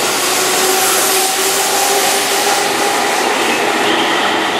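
Keihan 6000-series electric commuter train pulling out along the platform. Its cars pass close by with a steady loud rush of wheel and running noise and a faint motor whine.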